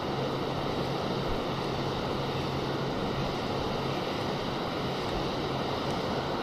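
Steady rushing of water from a dam spillway, an even unbroken roar with a faint low hum underneath.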